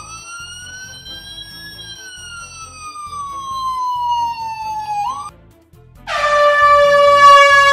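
Electronic toy sound effects: a siren-like tone slowly rises for about two seconds, falls for three and cuts off. About six seconds in, a loud steady horn blast starts as a toy is pressed down, over a soft background beat.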